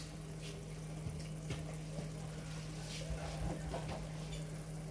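A frying pan of eggs and vegetables sizzling gently on a low gas flame, under a steady low hum, with a few faint ticks of a knife cutting fresh coriander over the pan.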